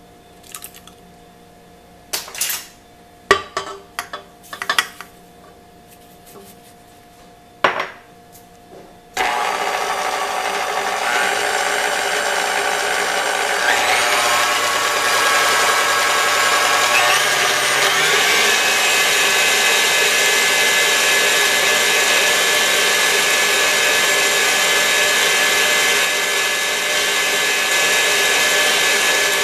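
A few sharp knocks, then a KitchenAid Heavy Duty stand mixer starts about a third of the way in, its wire whisk whipping egg whites in the steel bowl with a steady whirring. It steps up in speed twice as the speed lever is pushed higher, the pitch rising each time.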